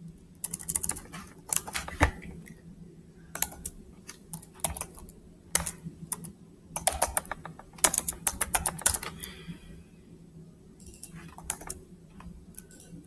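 Computer keyboard being typed on in short irregular bursts of key clicks with pauses between, including repeated presses of a key that leave empty command prompts.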